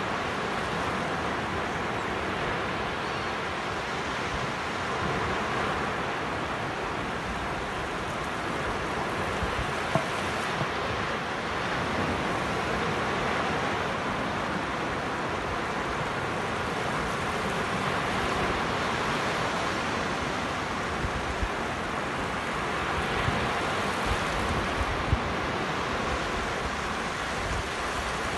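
Small waves breaking and washing up a sandy beach: a steady surf wash that swells and eases. There are a few brief low thumps about ten seconds in and again near the end.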